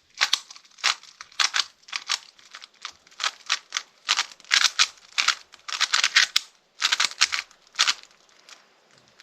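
A speedcube's plastic layers turning fast, in quick runs of clicks and clacks with short pauses between them, stopping about a second before the end.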